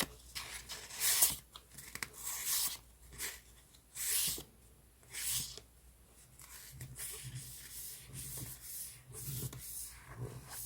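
Scrapbooking paper being handled: short, sharp rustles and crinkles about once a second, then softer sliding and rubbing of paper over the second half.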